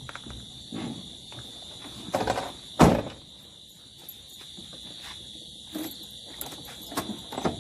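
Steady high-pitched insect drone, with scattered short knocks and thumps; the loudest comes about three seconds in.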